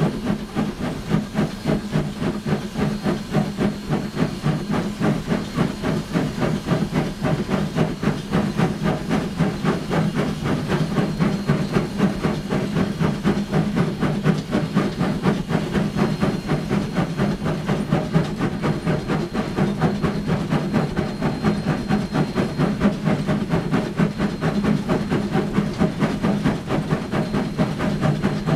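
Sierra Railway No. 3, a 4-6-0 ten-wheeler steam locomotive, heard from the cab working hard up a grade: a fast, even stream of exhaust beats from the stack over steady hissing steam.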